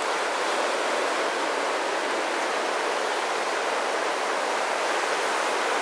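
Ocean surf breaking on the shore, heard as a steady, even rush of noise.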